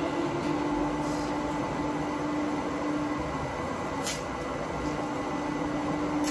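A steady machine hum with a low droning tone that cuts out and comes back several times, and a few brief soft swishes.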